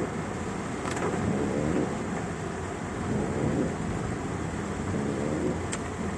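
Heavy rain pouring down during a flooding storm: a steady hiss of rain and water over a rumbling low roar, with two faint short ticks, one about a second in and one near the end.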